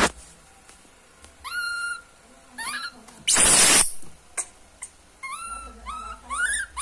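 A baby macaque giving short, high-pitched distress calls, about five of them, each rising and then holding briefly. A loud half-second burst of rushing noise comes near the middle.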